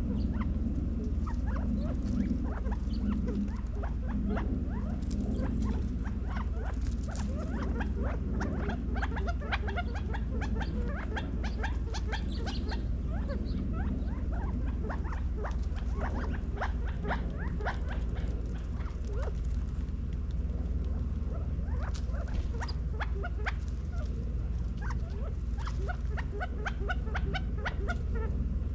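Quail feeding on seed scattered on concrete: a steady stream of quick, soft ticks and chips, thicker in two stretches, over a low steady hum.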